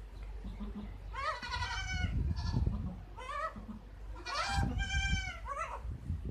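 Newborn goat kid bleating: a run of about four short, high-pitched bleats, roughly a second apart.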